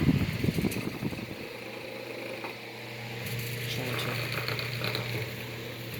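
Antique GE electric table fan running with a steady low motor hum. A burst of rattling comes in the first second or so, then the fan hums on smoothly.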